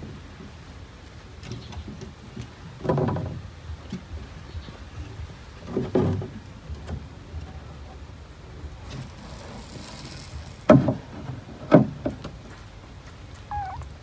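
Kittens scrambling about inside a plywood box, their bodies and paws knocking against the wooden walls and floor: a few scattered dull thumps, the two loudest about a second apart late on.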